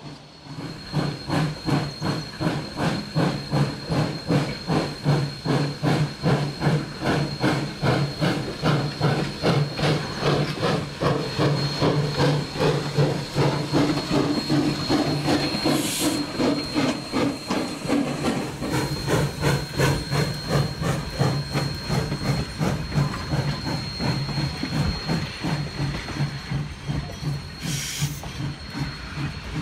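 Sierra Railway No. 3, a ten-wheeler steam locomotive, working hard up a grade with heavy passenger cars: steady rhythmic exhaust chuffs, about two to three a second, with steam hissing. Two short sharper hisses come about halfway through and near the end.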